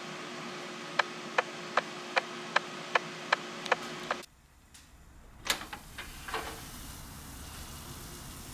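A kitchen appliance running with a steady hum and a held tone, while a series of eight sharp clicks, about two and a half a second, comes from it. It switches off suddenly about four seconds in, followed by a few light knocks and handling sounds.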